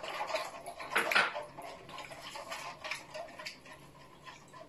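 Silicone-coated balloon whisk stirring water in a stainless steel bowl: irregular light clicks and splashes as fresh yeast is dissolved in lukewarm salted water, loudest about a second in.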